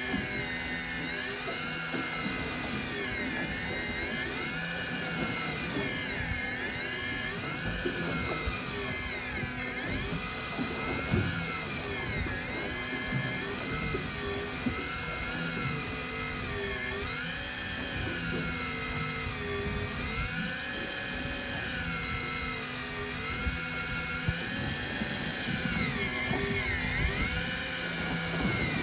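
Electric fishing reel motor whining as it winds in a fish on a hard-bent rod, its pitch sagging and recovering every second or two as the fish pulls against it, over a steady low hum.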